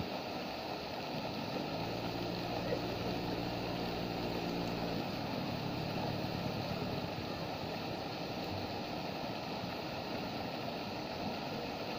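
Tall park fountain splashing steadily, its jets of water falling back into the pool. From about two to five seconds in, a low steady hum like a motor runs underneath.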